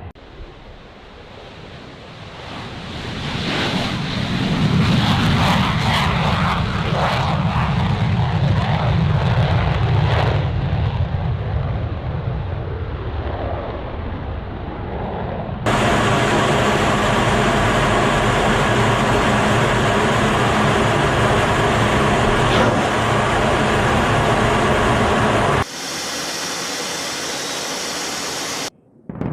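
Jet aircraft engine noise. A deep jet rumble swells over a few seconds and slowly fades. Partway through it cuts abruptly to a steady engine whine with several held tones, then to a quieter steady hum near the end.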